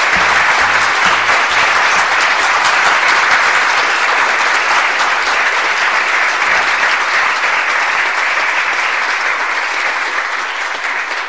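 Audience applause: a dense, steady clapping of many hands that thins out near the end.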